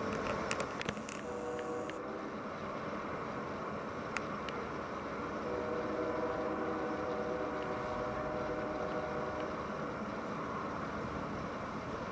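Distant Union Pacific genset switcher locomotives and an intermodal freight train running, heard as a steady rumble, with a faint engine drone that swells for a few seconds in the middle. A few sharp clicks near the start.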